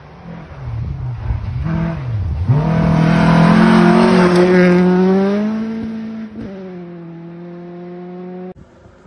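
Volvo rally car's engine at full throttle as it approaches on a gravel road, loudest as it goes by. The engine note then falls in pitch as it passes and moves away, and the sound cuts off suddenly near the end.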